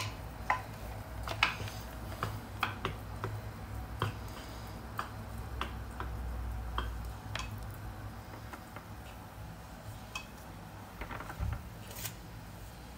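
Wooden spatula knocking and scraping against a nonstick frying pan as chicken pieces are stirred: scattered light clicks and taps over a steady low hum.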